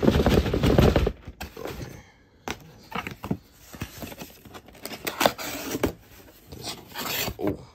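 Cardboard shipping box being handled and its flaps pulled open by hand. A loud scraping rustle of cardboard comes in the first second, then scattered taps, creaks and rustles.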